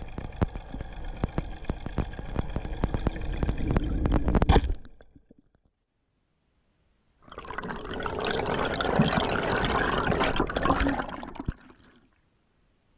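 Underwater recording: water noise with a steady drone and many sharp clicks that cuts off after about five seconds; after a short silence, a dense rush of bubbles and water that fades out near the end.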